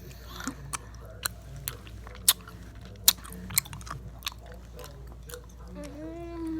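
Close-up mouth sounds of a person chewing something crunchy, eaten ASMR-style, with sharp crunches every half second or so. Near the end a hummed tone begins.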